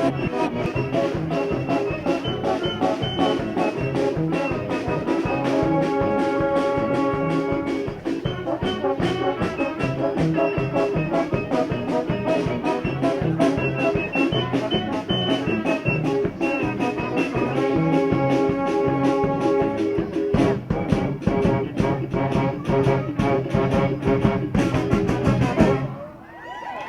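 Brass street band playing over a steady drumbeat, with the horns holding long chords at times. The music dips briefly near the end.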